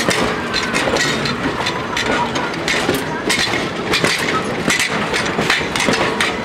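Steel wheels of passenger coaches rolling past on the rails: a steady rumble with irregular clicks and knocks, and a few brief, faint wheel squeals.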